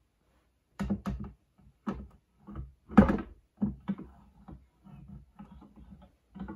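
Plastic housing and stand of an Acer KA2 21.5-inch monitor being handled and turned round: a string of short knocks and clicks, the loudest about three seconds in, then fainter rubbing and bumping.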